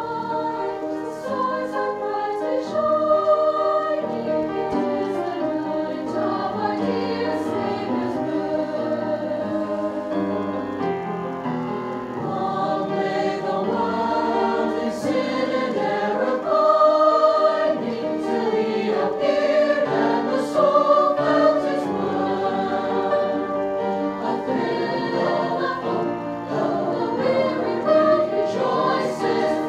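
A high school choir singing in harmony, several voice parts holding sustained notes together and moving from chord to chord.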